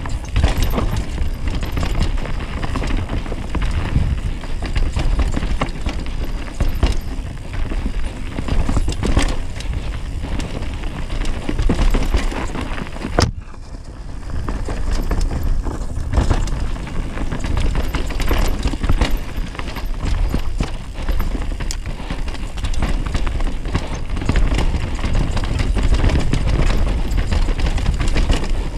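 Downhill mountain bike ridden fast down a dirt singletrack: tyres on dirt and the bike's frame and chain rattling and knocking over bumps, under a steady low rumble of wind on the microphone. The rattle drops away briefly about thirteen seconds in.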